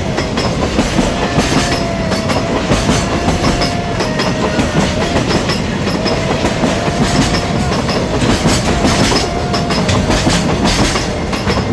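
Freight train wagons rolling past at speed, steel wheels clacking over the rail joints, with a steady, slightly wavering whine running under the rumble.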